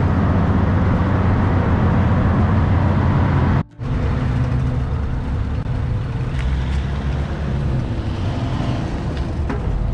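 Small car ferry's diesel engine running steadily with a low hum during a short crossing, dropping out briefly about four seconds in.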